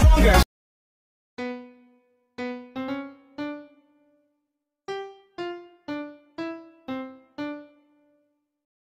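A short melody of about ten single piano notes played back from a phone music app's piano roll, each note struck and fading, the second phrase at an even pace of about two notes a second. Loud electronic dance music cuts off abruptly about half a second in, before the notes start.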